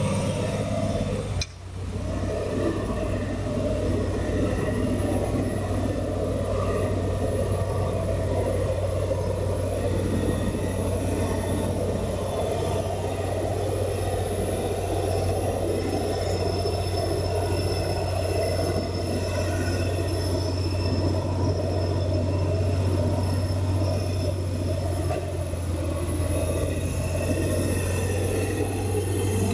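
Diesel engine of a forestry tractor running steadily with a constant low drone, with a brief dip about a second and a half in.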